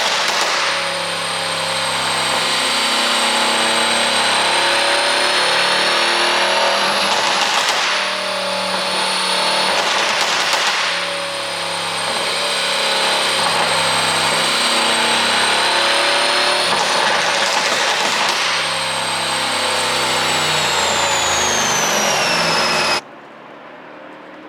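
Mercedes-AMG C63 S's 4.0-litre twin-turbo V8 running loudly and steadily, with a thin high whine, broken by a few short noisy bursts; the sound drops off abruptly near the end.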